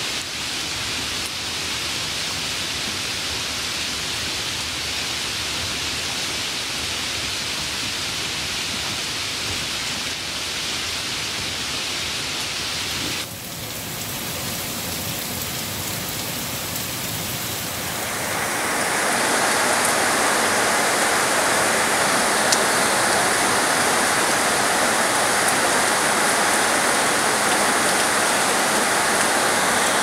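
Steady rain falling, heard as a continuous even hiss. It dips briefly about 13 seconds in, and from about 18 seconds it grows louder and fuller.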